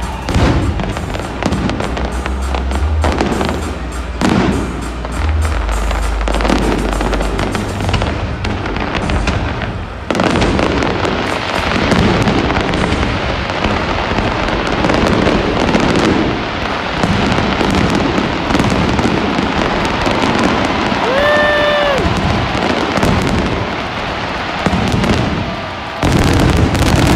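A fireworks display going off in rapid bursts and booms, with music playing underneath at first. From about ten seconds in, the shots merge into a dense, continuous crackling barrage: the show's finale.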